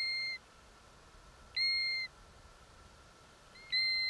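European golden plover calling: a single steady whistled note, repeated three times about two seconds apart.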